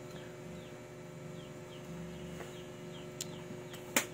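Faint high chirps, a bird peeping a few times a second, over a steady low hum. A spoon clicks against a plastic plate twice; the louder click comes near the end.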